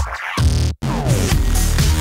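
Electronic dance music with a heavy bass line; it drops out briefly just before the one-second mark, then comes back with a falling synth sweep.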